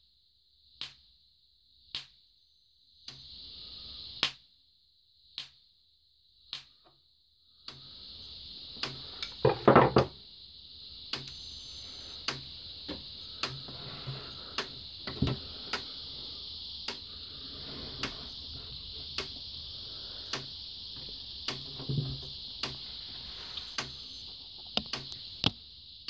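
Kencove K-6 electric fence charger pulsing, a sharp snap about once a second: a spark jumping between two screwdrivers held across its fence and ground terminals, a test of its output. From about 8 s in a steady high hiss runs under the pulses. Near 10 s there is a brief loud clatter of handling, and the ticks go on at the same rate.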